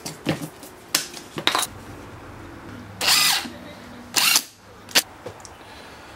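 Cordless drill/driver driving into a plywood board, the motor running in several short spurts, with a few loud bursts about three, four and five seconds in.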